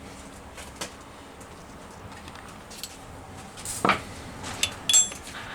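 Scattered light metallic clinks and taps from a socket and ratchet being handled, with a couple of short ringing clinks near the end.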